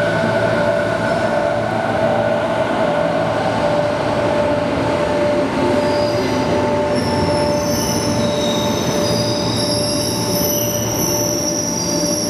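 JR East 205 series electric commuter train pulling into the station, its running gear rumbling steadily with squealing from the wheels. Higher-pitched squealing joins in about halfway through.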